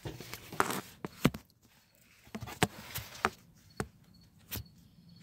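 Irregular sharp taps and knocks, about ten in five seconds, from the phone being handled and shifted about close to the microphone.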